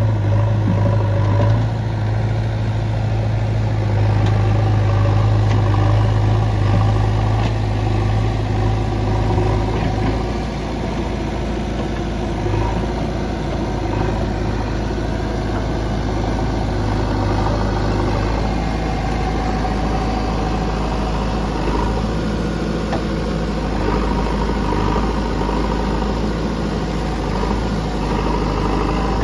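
JCB 3DX backhoe loader's four-cylinder diesel engine running steadily while the machine digs, with a low hum that is strongest for the first ten seconds or so and then eases slightly.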